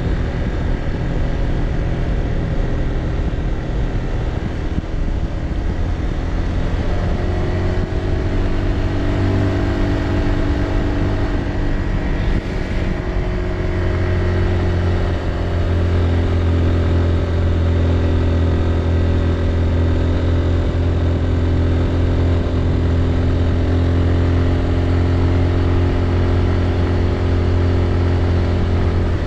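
Motor scooter engine running steadily while riding, with wind rush over the microphone. The engine note shifts a little in pitch about a third of the way through, then holds steady with a stronger low hum.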